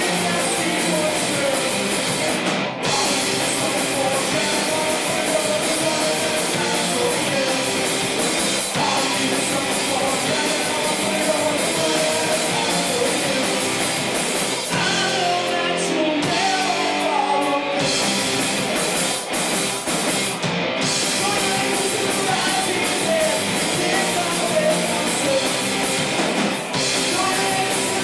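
A live rock band playing a song on electric guitars, bass and drum kit, loud and dense. About halfway through, the drums and cymbals drop out for a few seconds while a guitar line carries on, then the full band comes back in.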